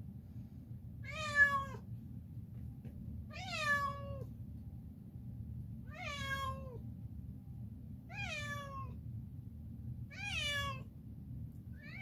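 Domestic cat meowing over and over: five long meows about two seconds apart, each sliding down in pitch, over a low steady hum.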